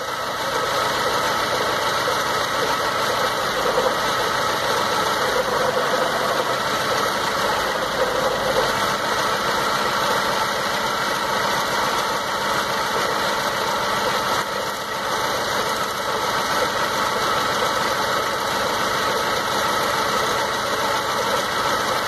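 Four-cylinder car engine idling rough with a misfire, while its spark plug wires are pulled off one at a time to find the dead cylinder.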